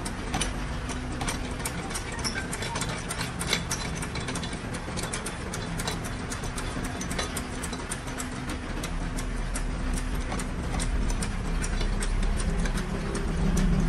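Air suspension of a Toyota Corolla Grande being worked: a steady mechanical hum with many irregular clicks and ticks, getting a little louder near the end.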